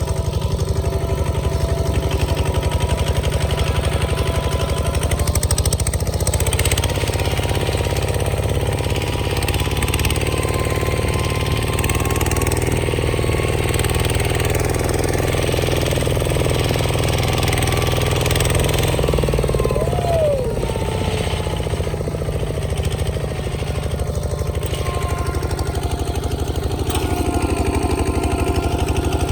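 Bulldozer engine running steadily, a dense low chugging with no change in pace.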